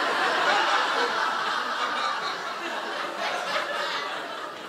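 Audience laughing, loudest at the start and slowly dying away.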